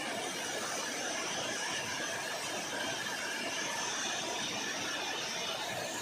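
Heavy rain falling steadily, an even hiss with no thunder in it.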